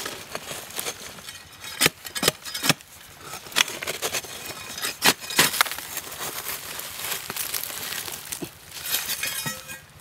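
A bar prying and chipping into a hard, dry termite mound, breaking off clods of earth: irregular sharp knocks and clinks, with steadier scraping and crumbling in the second half.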